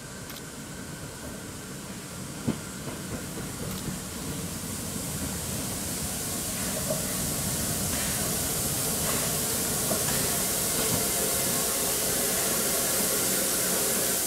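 Narrow-gauge 2-10-2T steam tank locomotive 99 7241-6 approaching, a steady hiss of steam growing louder as it nears. A single sharp click about two and a half seconds in.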